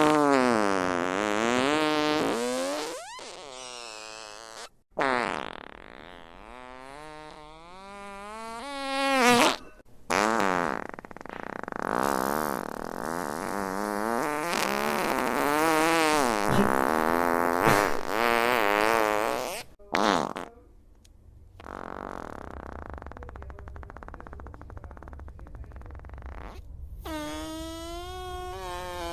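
Fart sound effects played one after another, about half a dozen: most are long with a wavering, sliding pitch, and one about three quarters of the way through is a lower, buzzy fart lasting several seconds.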